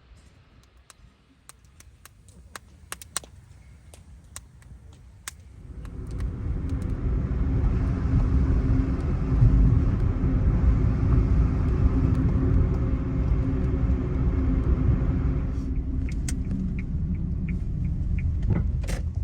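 A motor vehicle running, a steady low rumble with a hum in it that comes up about six seconds in and drops away near the end, after a few seconds of faint clicks.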